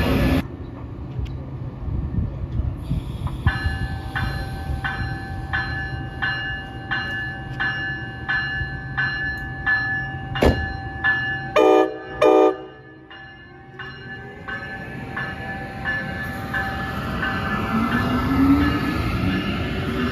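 Amtrak Siemens ACS-64 electric locomotive's bell ringing about twice a second, then two short horn blasts about twelve seconds in. After that comes the building noise of the train as it pulls in past the platform.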